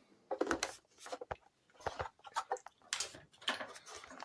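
Irregular small clicks, taps and rattles of small parts being handled and set down on a workbench, with a couple of duller knocks.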